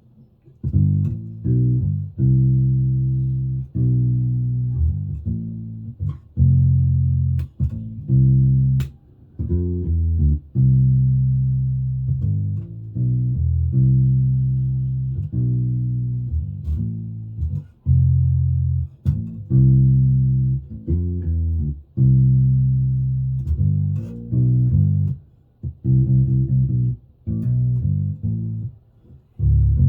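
Hammer five-string mini bass played through a small Warwick BC10 bass amp: a phrase of plucked notes, some held for over a second and others short and quick, with a deep, full low end.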